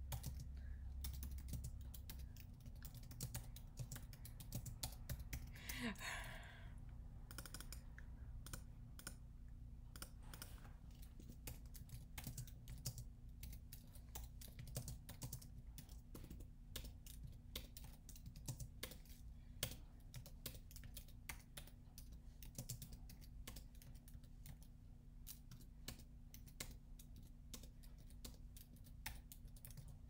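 Computer keyboard keys clicking as a line of text is typed, in irregular runs of keystrokes with short pauses between words.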